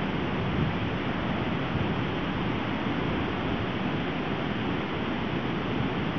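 Steady rushing wind, with low gusts buffeting the microphone.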